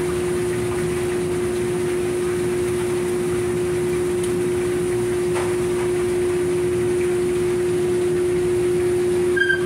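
Steady machinery hum on a fishing boat, running evenly with one constant droning tone. A brief high beep comes near the end.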